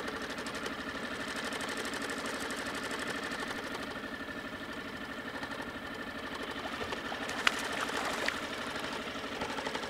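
Outboard motor running steadily at trolling speed, a fast even hum. Two brief sharp sounds come about three quarters of the way through.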